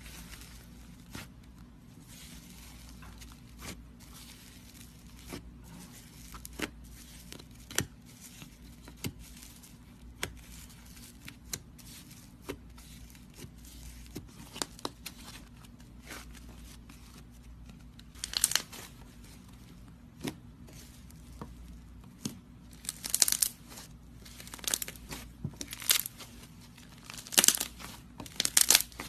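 Slime being pressed and pulled by hand: scattered sticky clicks and small pops, turning into louder crackling bursts about two thirds in and again near the end.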